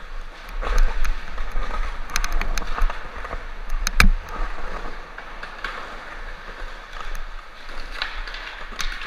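Skateboard wheels rolling on concrete, a steady rumbling hiss with scattered sharp clacks and one loud knock about four seconds in.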